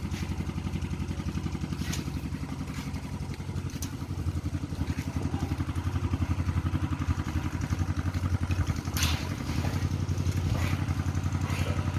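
A small engine running steadily with a rapid, even beat, getting a little louder about four seconds in, with a few sharp clicks over it.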